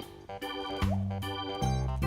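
Background music: an electronic keyboard tune with organ-like chords over a repeating bass note.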